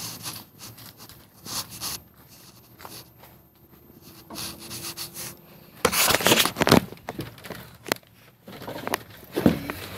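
Handling noise from a camera being carried and moved about: rubbing and scattered knocks against the microphone, with a loud burst of scraping about six seconds in.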